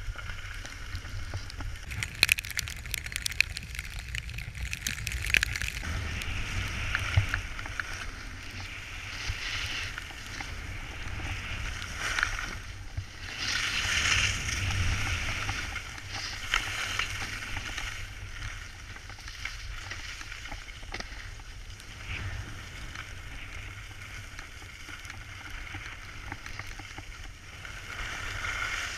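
Edges carving and sliding over packed snow on a moving run, a scraping hiss that swells and fades, loudest about halfway through, with wind rumbling on the microphone and a few sharp ticks in the first few seconds.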